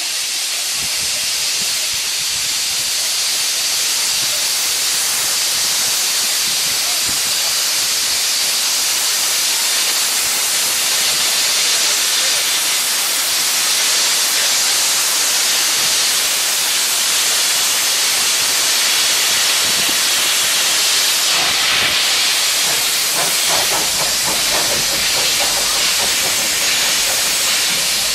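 Small steam locomotive hissing loudly and steadily as it vents steam, white steam blowing from its open cylinder drain cocks. About three quarters of the way through, a quick rhythmic beat and a low rumble join the hiss as it moves off.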